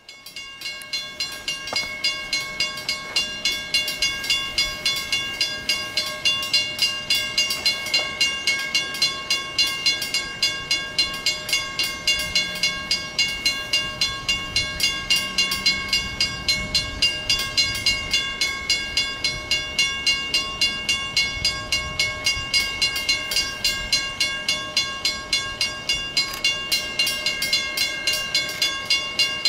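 Railroad grade-crossing warning bell ringing steadily at about three strokes a second, a signal that a train is approaching the crossing.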